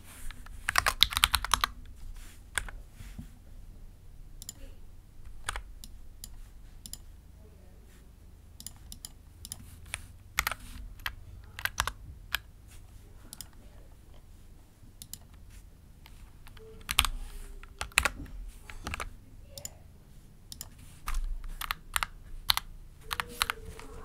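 Mechanical keyboard with Gateron Oil King v2 linear switches being typed on in uneven spurts: a fast run of keystrokes about a second in, scattered single presses, and more flurries near the end.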